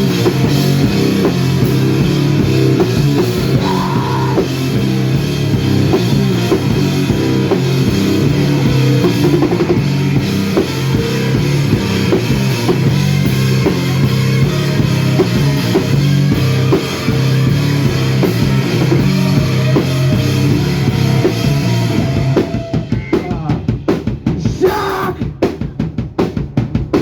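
A rock band playing loud and live in an instrumental passage, with a drum kit driving it. About 22 seconds in, the sustained band sound drops away and the drum kit carries on alone, with separate kick and snare hits.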